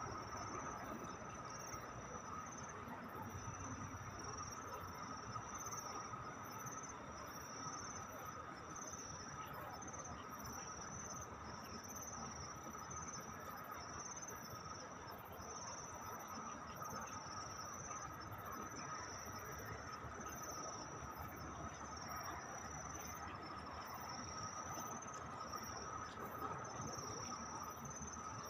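Night insects chirping steadily in a chorus: a high chirping that pulses in a regular rhythm over a lower continuous trill.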